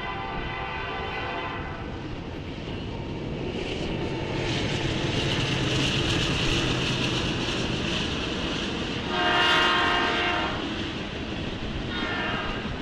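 Norfolk Southern freight train's locomotive air horn sounding for the grade crossing: a blast at the start, a louder one about nine seconds in, and another starting near the end. Between the blasts the locomotive and freight cars run past, with steady wheel-on-rail noise that swells in the middle.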